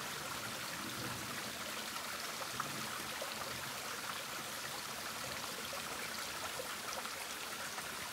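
Small mountain stream running shallow over rock slabs: a steady trickling of water.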